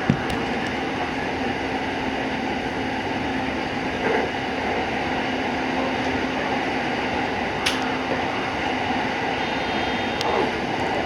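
Musashino Line electric train running, heard from inside the passenger car: a steady rumble of wheels on rail with a faint hum, and a couple of sharp clicks.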